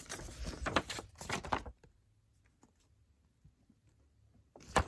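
Hard plastic toy-figure parts clicking and knocking as a transforming robot figure is handled and its pieces are worked. There is a quick run of clicks over the first second and a half, then little until one sharp click near the end.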